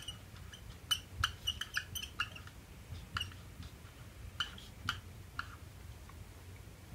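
Felt-tip marker writing on a whiteboard: a run of short, irregular squeaks and clicks, densest in the first two seconds and sparser after, over a faint low hum.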